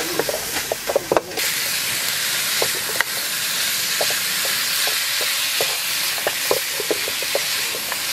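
Spicy pork ribs in sauce sizzling in a hot frying pan while a silicone spatula stirs them, with many short knocks and scrapes of the spatula against the pan over a steady hiss. The hiss grows a little louder just over a second in.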